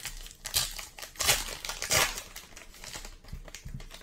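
Hands tearing open and crinkling the wrapper of a 2021 Topps Heritage baseball card pack. The crackle is loudest between one and two seconds in, then eases to softer rustling.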